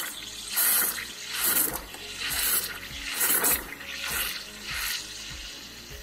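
Morphy Richards espresso machine's steam wand frothing milk in a mug, hissing and gurgling in pulses a little under a second apart, which die down near the end.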